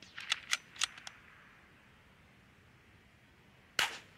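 A RimX bolt-action .22 LR rifle: a quick run of metallic clicks in the first second as the bolt is worked, then a single sharp shot near the end.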